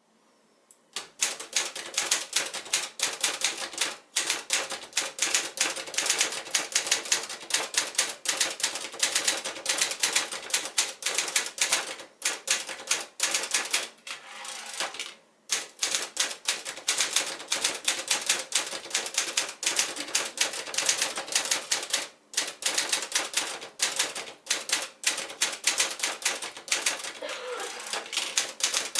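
Sears Manual 2 portable manual typewriter, a Brother JP-5 design, being typed on: a fast run of clacking keystrokes, broken by a few short pauses.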